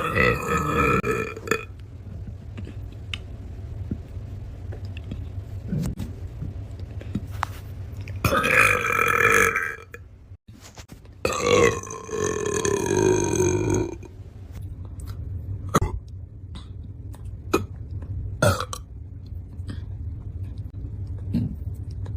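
A person burping loudly, several long drawn-out pitched burps: one right at the start, one about eight seconds in and a longer one of about three seconds from about eleven seconds, with a few short sounds later on. A steady low hum runs underneath.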